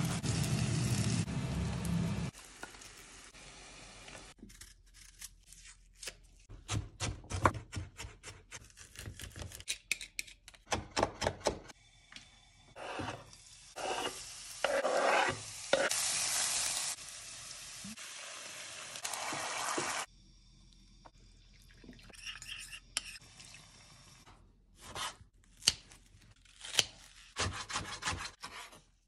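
Kitchen cooking sounds: a tap runs for the first two seconds, then come scattered knocks, scrapes and stirring in a pan, with stretches of oil sizzling in the middle as food fries.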